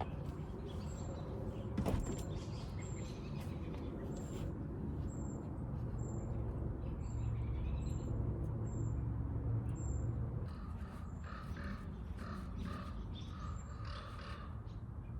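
A crow cawing in a series of calls from about ten seconds in, over a steady low rumble. A short high chirp repeats through most of it, and there is one sharp knock about two seconds in.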